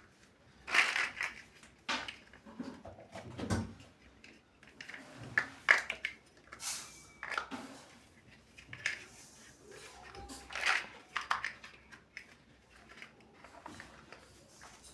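Plastic toy building bricks being handled and pressed together: irregular sharp clicks and light clatters, spaced unevenly with short pauses between.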